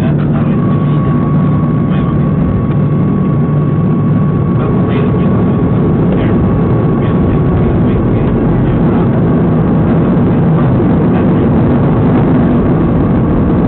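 Boeing 737-300 jet airliner's CFM56 engines and airflow, a steady loud rumble with a thin steady whine above it.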